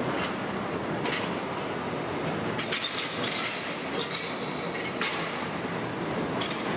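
Hot steel rolling mill at work as a red-hot bloom runs through the stand on the roller table: a steady heavy rumble of turning rolls, broken by irregular metallic clanks about every second or two.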